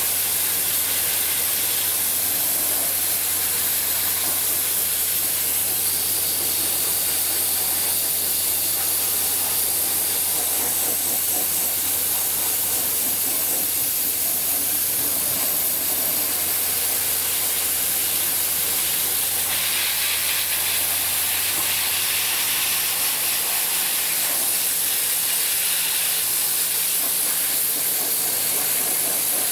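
Dry ice blasting gun spraying a continuous, steady hiss of compressed air and dry ice pellets against a car's underbody, with a steady low hum underneath. The hiss turns harsher for a few seconds about two-thirds of the way through.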